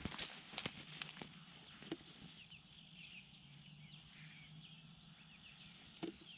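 Plum tree branches and leaves rustling, with a quick cluster of sharp clicks and snaps as fruit is picked in the first two seconds, then faint bird chirps over quiet hillside ambience and one soft knock near the end.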